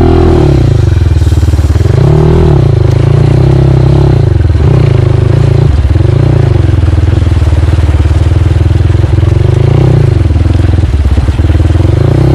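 CrossFire motorcycle engine running under load off-road, loud throughout, its pitch rising and falling repeatedly as the throttle is opened and eased.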